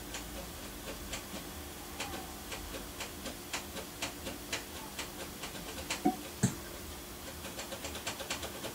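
Small switches on a model railway control panel flicked one after another: a run of light, irregular clicks, with two louder knocks about six seconds in. They are being tried while testing a buffer stop's LED indicator that will not light.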